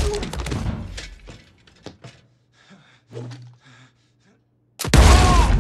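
Gunshots indoors: a loud shot just before dies away in the room's echo, a few faint mechanical clicks follow, and a second loud shot goes off about five seconds in.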